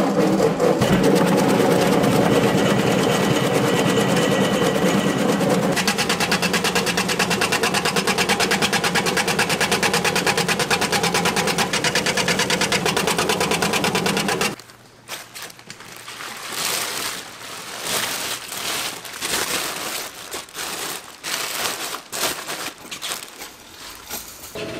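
Electric vegetable shredder running as a Korean white radish is pushed into its steel feed chute and cut into thin strips, a loud fast, even rattle. It cuts off abruptly a little past halfway, leaving quieter irregular knocks and handling noise.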